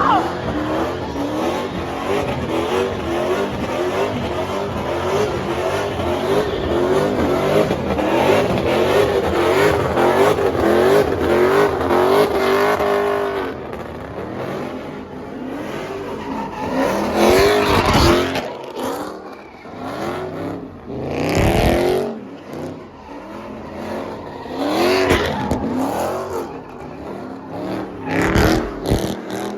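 Car engine revving hard with tires squealing, the pitch wavering up and down steadily for about the first thirteen seconds. After that come several separate revs that rise and fall.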